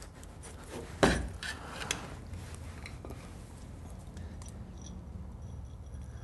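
A flat-bladed screwdriver prying at the steel rear hub cover of a VW Beetle, giving a sharp metallic knock about a second in and a couple of lighter clinks as the cover is worked loose from the brake backing plate. After that come soft handling sounds as the cover is gripped by hand.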